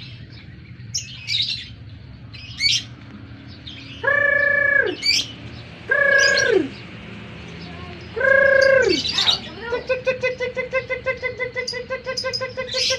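Cage birds calling: short, sharp chirps, then three longer held calls about two seconds apart that each drop in pitch at the end. After that comes a fast, evenly pulsed trill lasting about three seconds.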